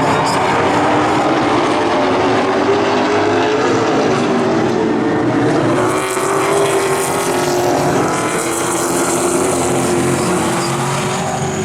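Pro Late Model stock cars racing on an asphalt oval, several V8 engines at once at high revs, their pitches drifting up and down as the cars go round.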